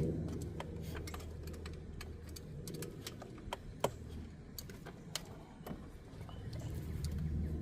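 Ratchet and socket on an extension working a 14 mm starter bolt loose: irregular sharp metallic clicks, several a second, over a steady low hum.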